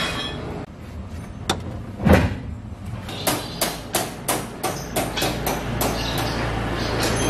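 Mini dump truck's hydraulic tipping rig under test, with the bed raised: a single thud, then a run of sharp knocks about three a second. About two thirds of the way through, a low steady hum of a small pump motor sets in.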